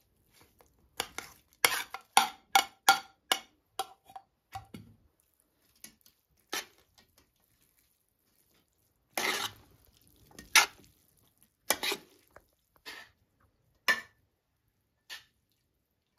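Metal spoon and fork clinking and scraping against a bowl and an aluminium pot as potatoes are spooned onto spaghetti and mixed in. A quick run of about eight clinks comes in the first few seconds, then a longer scrape a little past the middle, then scattered single taps.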